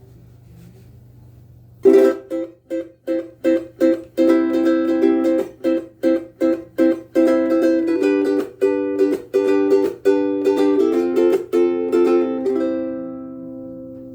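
Ko'olau KC-10 ukulele with aNueNue Clearwater strings being strummed. After about two seconds of quiet, it plays a run of short, choppy chord strokes, then fuller ringing strums, and ends on a last chord that rings out and fades.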